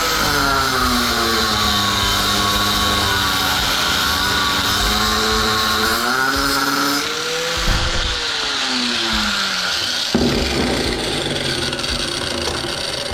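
Handheld power tool running on metal, its motor pitch repeatedly sagging and rising as it loads up, while taking a riveted steel piece off an aluminium high jump stand. The sound changes character about ten seconds in.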